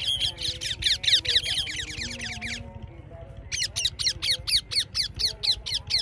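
Ringneck parakeets screeching in rapid runs of harsh, falling calls, about six a second, with a break of about a second near the middle.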